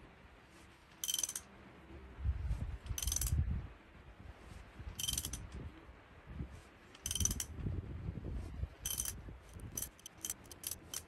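Socket ratchet clicking in short bursts about every two seconds, with a low rumble on the strokes between. It is turning a bolt through a nut to draw a tight cast iron valve guide out of a Fordson F engine block under heavy tension. Near the end the clicks come quicker and separate.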